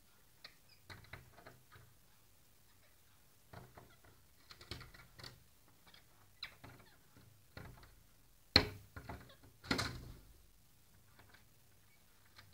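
Pet parrots knocking and tapping with their beaks: irregular light taps and clicks, with one sharp, louder knock about two-thirds of the way through and a short scuffle of knocks just after.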